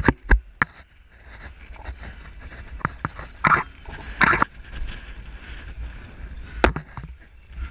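A climber moving over the stone blocks of the Great Pyramid: sharp knocks of shoes and hands on the stone near the start and again near the end, and two loud short breathy bursts, heavy breaths of exertion, in the middle, over wind rumble on the microphone.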